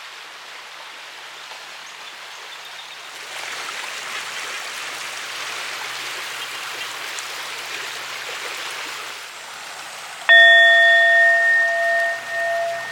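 Steady rush of running water, growing a little louder a few seconds in. About ten seconds in, a singing bowl is struck once and rings on, its tone pulsing slowly as it fades.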